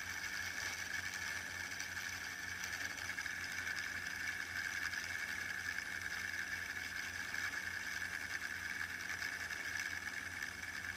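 Light-up fidget spinner spinning freely while held between finger and thumb, its bearing giving a steady, even whir.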